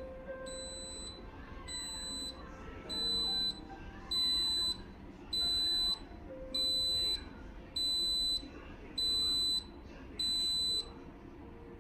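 Instant Pot Plus Mini electric pressure cooker beeping about ten times, high short beeps roughly one a second, as its cooking timer reaches 00:00: the signal that the pressure-cooking time is up.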